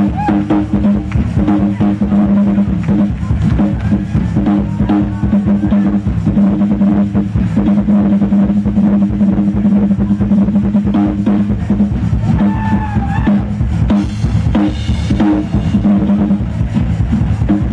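Live drum solo on a Ludwig drum kit: fast, unbroken rolls and strikes across the snare, toms and bass drum, with cymbals.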